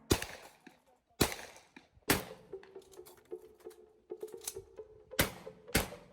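Shotgun fired in a rapid string: about five sharp shots, roughly a second apart, with a gap of about three seconds in the middle.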